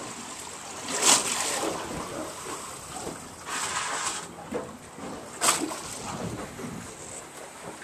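Sea water splashing and sloshing against a boat's hull, with a few louder splashes about a second, three and a half seconds and five and a half seconds in.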